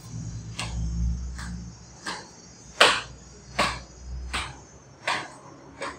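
Footsteps marching in an even rhythm, a short sharp step about every three-quarters of a second: the flag party carrying the flag back to its place.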